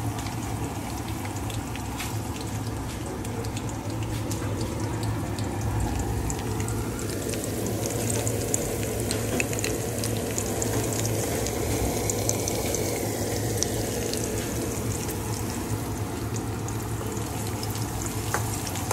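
Sliced garlic and green chillies sizzling in hot oil in a metal kadai: a steady fizz with scattered small crackles, over a low steady hum.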